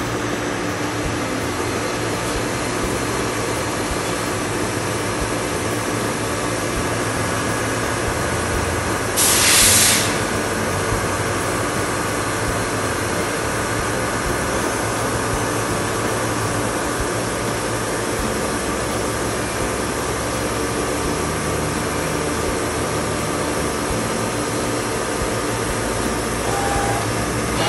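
Romi Centur 30D CNC lathe running, a steady machine whir with several steady tones. About nine seconds in, a loud hiss lasts about a second.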